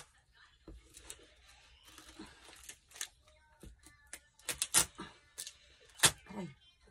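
Clear packing tape being pulled off its roll and pressed onto a plastic-wrapped cardboard shipping box: a series of short, sticky ripping noises, the loudest about six seconds in.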